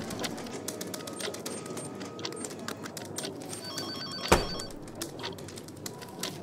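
Office ambience with scattered small clicks and clatter, and a telephone ringing in short repeated trills near the middle. About four seconds in, a thick stack of paper files thumps down onto the desk, the loudest sound.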